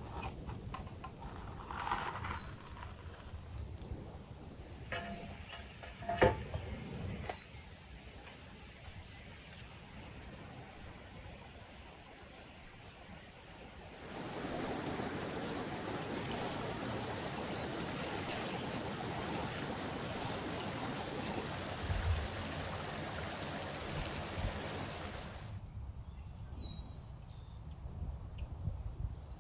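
Metal hook scraping and clanking on a baking tray in a wood-fired clay oven, with one sharp clank about six seconds in. About halfway through, a steady rush of river water begins and cuts off abruptly near the end. Birds chirp briefly throughout.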